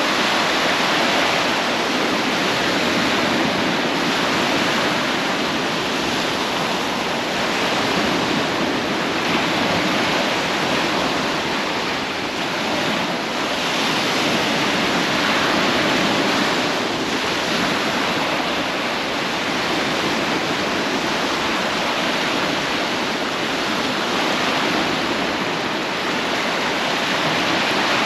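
Surf washing onto a sandy beach: a steady hiss of breaking waves that swells and eases gently every few seconds.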